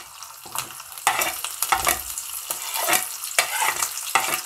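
Curry leaves sizzling and spluttering in hot oil with mustard seeds and asafoetida in a small aluminium pan, with frequent irregular crackling pops: the tempering (tadka) being made.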